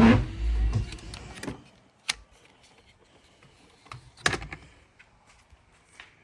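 1986 Toyota 4Runner's windshield wiper motor running and then stopping about a second and a half in, followed by a few sharp clicks of the wiper/headlight combination switch being worked, the loudest about four seconds in.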